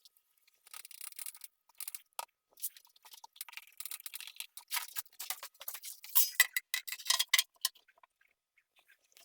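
Tiling work with hand tools: irregular light clicks, taps and scrapes, busiest in the middle and stopping about eight seconds in.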